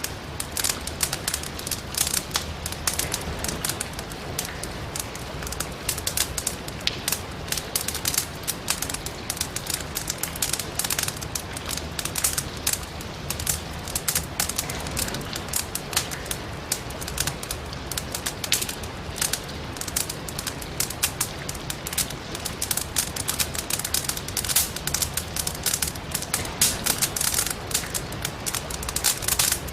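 Firewood burning in a fireplace, crackling and popping in dense, irregular snaps over a steady hiss of rain.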